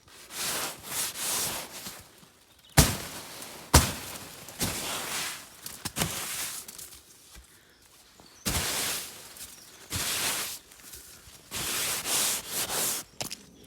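Brush sweeping wet snow off bell-tent canvas in repeated swishing strokes, with two sharp knocks about three and four seconds in.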